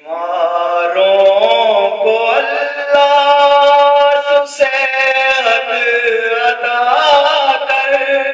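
A man singing an Islamic devotional song into a microphone: long, held notes with wavering ornaments, broken by a short pause about halfway.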